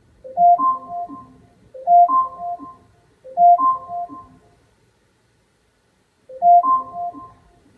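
Phone alarm ringtone going off: a short rising melody of a few electronic notes repeats about every second and a half, three times, then after a brief pause starts again.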